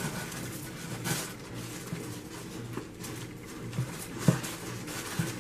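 Packaging wrapping being handled and pulled open: rustling and crinkling with scattered light clicks and taps, the loudest a sharp snap about four seconds in.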